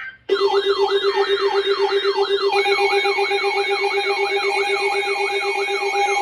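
Electronic siren-style alert tone: a rapidly repeating falling sweep, about three a second, over a steady low tone, with another steady tone joining about two and a half seconds in.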